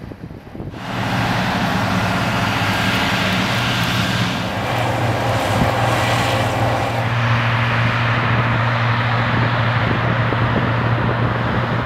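Combine harvester running steadily in a canola field: a low, constant engine hum under a broad whirring noise, starting about a second in.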